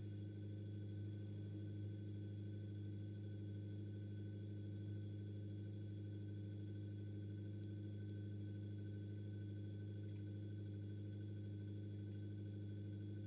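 Deutz-Allis 7085 tractor's diesel engine idling with a steady, even hum, with a few faint clicks in the second half.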